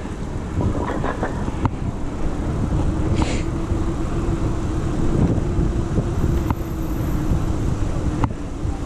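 Riding noise of a mountain bike on stone paving, picked up by a chest-mounted action camera: a steady low rumble of wind and tyres with a steady hum through most of it. A few sharp clicks and knocks come from the bike, and there is a brief hiss about three seconds in.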